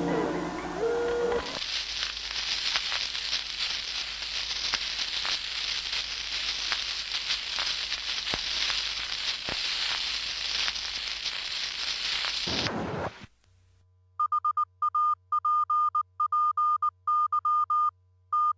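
About eleven seconds of dense, crackling hiss that cuts off abruptly. After a moment of near silence, a string of short, high electronic beeps starts in quick bursts over a steady low hum.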